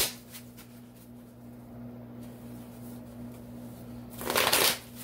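Tarot cards being shuffled by hand, with a short burst of shuffling noise about four seconds in, over a steady low hum.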